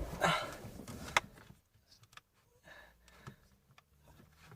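Hands working the plastic stalk switch assembly and its wiring clips back into place on a Renault Clio MK3 steering column: light plastic rustling and a few small clicks, busiest in the first second with one sharper click, then only faint scattered ticks.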